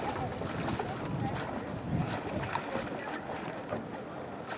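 Water sloshing and splashing around an outrigger canoe hull as paddlers climb back aboard after a capsize drill, with wind on the microphone and faint voices in the distance.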